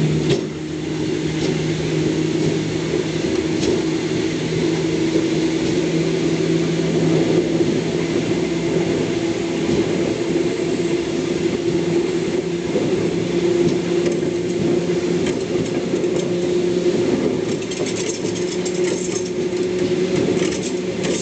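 Electric multiple unit running slowly out of the station, heard from inside its rear cab: a steady electric hum over rumbling wheel and rail noise, with occasional clicks as the wheels cross points and rail joints.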